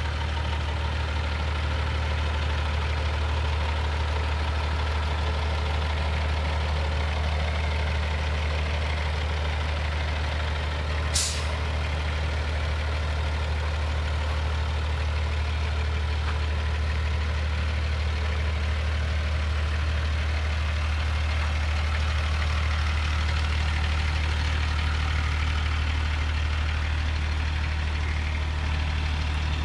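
Caterpillar 3126 inline-six diesel in a 2003 Ford F-650 idling with a steady low drone. About eleven seconds in there is one short, sharp hiss of air from the truck's air brake system.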